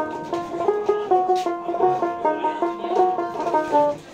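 Background music of quick plucked-string notes in a steady rhythm, stopping shortly before the end.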